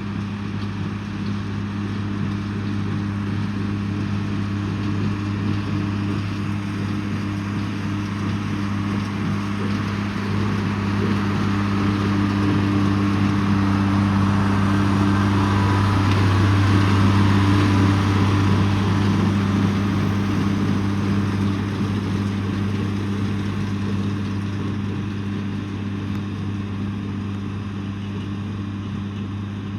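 John Deere 4040 tractor's six-cylinder diesel running at a steady working speed while baling hay with a small square baler. It grows louder towards the middle, then fades as the tractor passes by and moves off.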